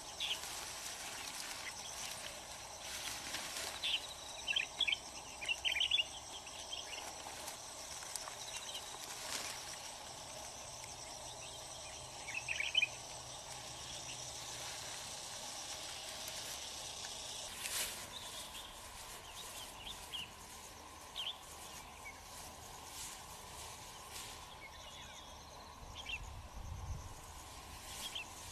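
Outdoor countryside ambience: a steady high insect drone with short bird chirps now and then, loudest in two clusters, one a few seconds in and one near the middle. Soft rustling of shrub branches and leaves comes from fruit being picked by hand.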